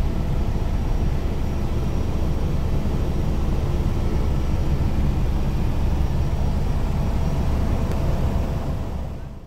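Helicopter cabin noise in flight: a steady, loud, low rotor-and-engine drone with a faint high whine. It fades out near the end.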